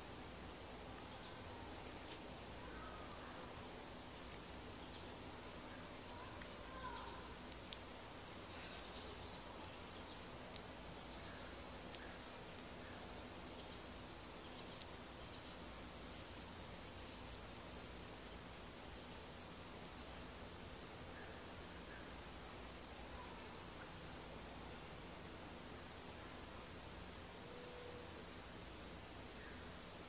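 House finch nestlings begging to be fed by an adult at the nest: a long run of short, high-pitched cheeps, about two to three a second. They start a few seconds in and stop a little past the two-thirds mark.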